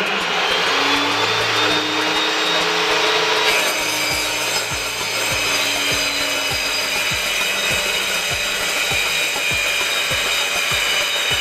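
Homemade table saw running and cutting through a wooden board fed along the fence. The cutting gets louder about three and a half seconds in and carries on steadily, with a light tick about twice a second underneath.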